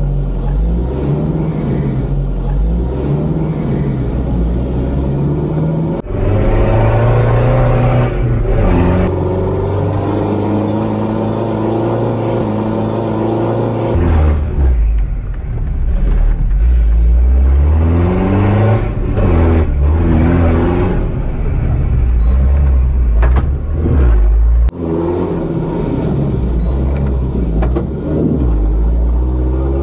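Toyota Land Cruiser's engine heard from inside the cabin, revving up and down as the truck accelerates over a dirt off-road track. The sound changes abruptly a few times where the footage is cut.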